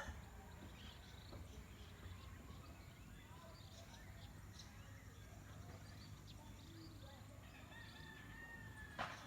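Quiet farmyard ambience: faint scattered calls of chickens and small birds, with one sharp click about nine seconds in.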